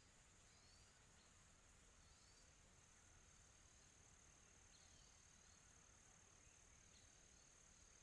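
Faint tropical afternoon ambience of crickets: a steady high trill, with short faint chirps now and then.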